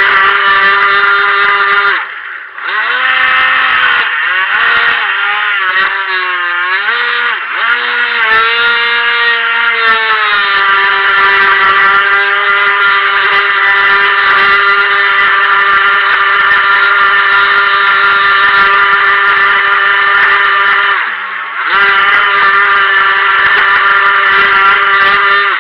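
Helion Rivos RC boat's stock brushed electric motor running with a high, steady whine. It cuts out briefly about two seconds in, then wavers up and down in pitch with the throttle for several seconds before holding steady. It dips once more near the end.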